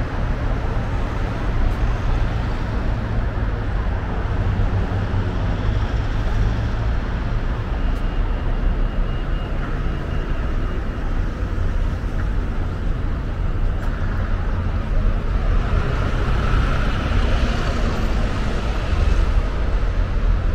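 Steady road traffic noise with a deep rumble underneath, growing louder for a few seconds near the end as vehicles pass.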